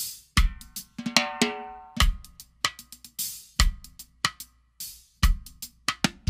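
Drum kit playing a reggae groove on a Sonor AQ2 14x6 maple snare drum tuned very high, with no muffling and the snares off. The snare rings with a high, pitched tone and is partly played as cross-stick clicks, over a bass drum about every one and a half seconds and hi-hat ticks.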